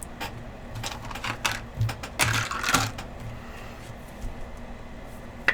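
Trading cards being handled: a scattering of short clicks and rustles, busiest around the middle.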